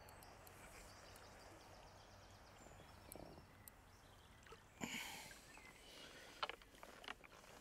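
A carp splashing as it is scooped into a landing net, a brief splash about five seconds in, followed by a couple of light clicks; otherwise faint outdoor background.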